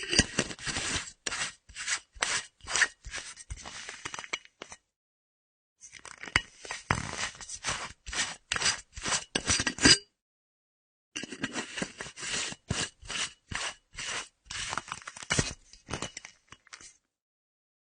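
Screw cap of an empty metal flask being twisted open and shut: quick scraping strokes of the metal threads with small clicks. It comes in three separate takes with silence between them.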